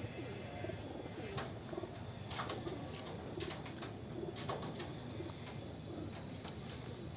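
A dove cooing in soft low notes, repeated through the stretch. Underneath runs a steady high-pitched tone, with a few faint clicks.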